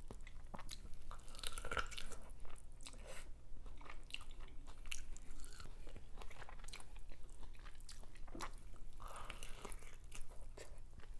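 Close-miked biting and chewing of corn on the cob: irregular crunching clicks of kernels being bitten off and chewed.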